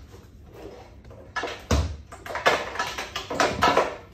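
Handling noise as a boxed scooter battery is pulled out and lifted: a thump about a second and a half in, then rustling and knocks of the box and packaging.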